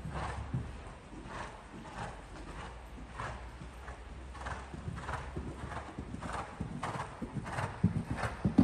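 Hoofbeats of a five-year-old show-jumping gelding cantering on sand arena footing, in a steady rhythm that grows louder near the end.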